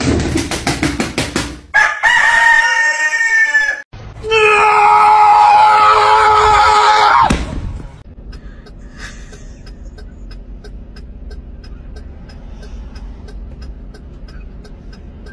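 A rooster flapping its wings, then crowing twice in two long, loud crows. After about seven and a half seconds the crowing stops and a much quieter steady sound with faint regular ticks follows.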